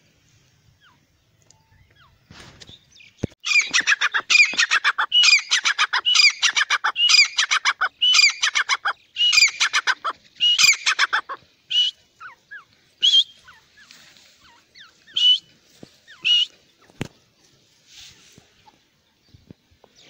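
Grey francolin calling: about three seconds in, a loud, fast run of repeated call phrases that lasts about eight seconds. Then four or five short single notes follow, spaced about a second apart.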